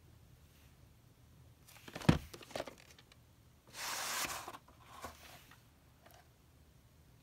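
VHS cassette handled and slid out of its cardboard slipcover sleeve: a few sharp clicks and knocks about two seconds in, then a short scraping rustle of plastic sliding against cardboard about four seconds in.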